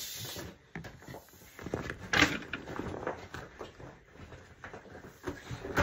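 Handling noise from inflatable vinyl boxing gloves being pulled on and moved about: scattered soft knocks and scuffs, with one louder rub about two seconds in.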